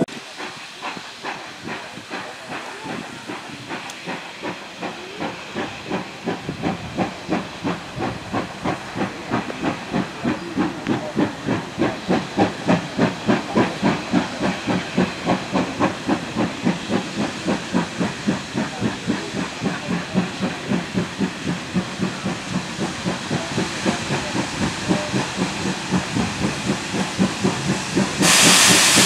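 Steam locomotive working its train, the exhaust beating in a steady rhythm of about three chuffs a second over a constant steam hiss, growing louder as it approaches. A loud burst of steam hiss starts near the end.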